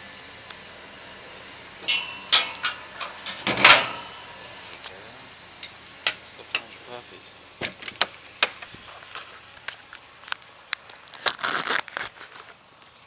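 Metal dog-kennel door and latch clanking and rattling as a dog is shut in, loudest about two to four seconds in, followed by scattered clicks and footsteps.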